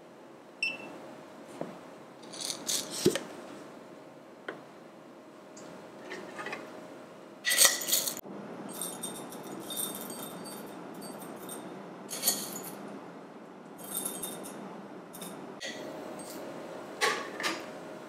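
Coffee beans poured into a knurled metal hand grinder (Timemore Chestnut Slim) in a loud dense burst about halfway through, followed by a few seconds of fine clicking as the beans settle. Before and after it come separate clicks and knocks as equipment is handled and set down on the counter, with a faint steady hum at the start and near the end.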